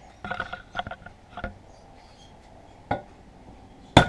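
Metal tools clinking and rattling as they are handled, then a single knock about three seconds in and a sharp, loud strike near the end, the first of a series of blows.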